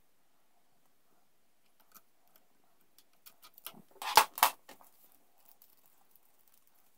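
Metal pliers clicking and clacking as they are taken off the steel-braided brake line fitting: a few light ticks, then two sharp metallic clacks about four seconds in, a quarter second apart.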